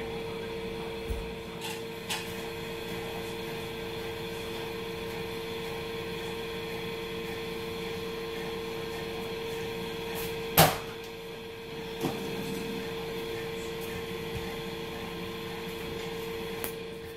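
A steady mechanical hum from something running in the room, with a few soft clicks and one sharp knock about ten and a half seconds in.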